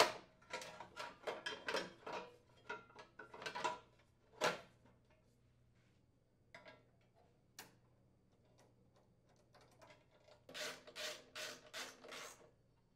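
Hand ratchet clicking in quick runs as the bolts of a snowblower engine's muffler cover are driven in. After a pause with a few single clicks, a second run of strokes comes near the end.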